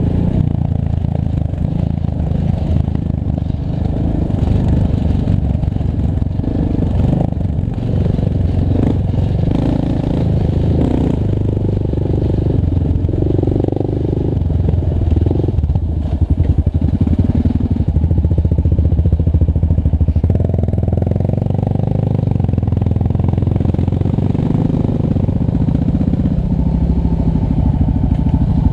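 Yamaha Raptor 700 ATV engine, a single-cylinder four-stroke, running hard as the quad rides a dirt trail, the throttle opening and easing every few seconds.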